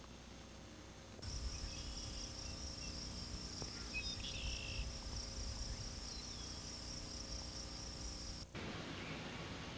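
Outdoor summer ambience: a steady, high-pitched insect trill with a slight pulse, with a few short bird chirps about halfway through and a low rumble of wind on the microphone. The trill starts abruptly about a second in and cuts off abruptly near the end.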